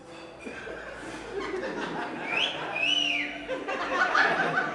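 Audience chuckling and laughing, growing louder, with a two-note wolf whistle about halfway through: a short rising note, then a longer one that rises and falls.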